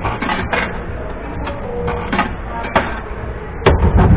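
A few sharp clicks over background chatter, then near the end a loud clunk as the police helicopter kiddie ride's motor starts and settles into a steady low hum. No music or sound effects play: the ride's sound system is dead.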